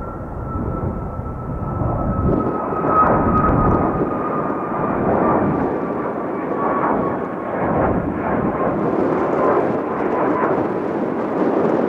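Boeing 737 MAX 8 twin turbofan jet engines at takeoff power during climb-out: a steady jet roar with a whine that slowly falls in pitch. The roar swells louder a couple of seconds in and wavers.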